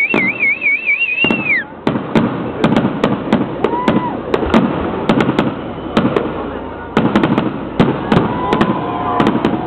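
Fireworks display: a rapid series of bangs from bursting shells over continuous crackling. A warbling whistle from a whistling firework runs through the first second and a half, and shorter whistles come at about four seconds and near the end.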